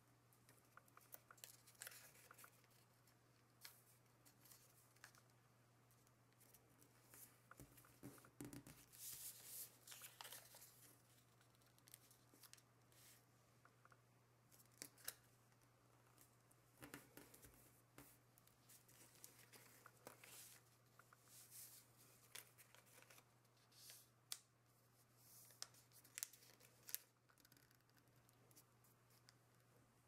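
Faint rustling, creasing and crinkling of origami paper as it is folded by hand, with scattered soft clicks as the paper is pressed flat against the table. A low steady hum runs underneath.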